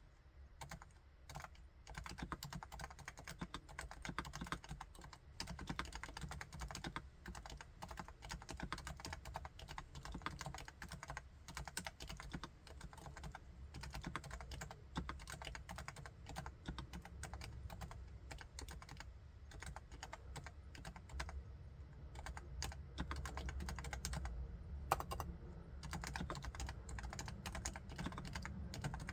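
Continuous typing on a Topre Realforce R4 keyboard, its electrostatic capacitive (Topre) key switches giving a very quiet, muted clatter of rapid keystrokes. A few scattered strokes open it, then steady fast typing from about a second in.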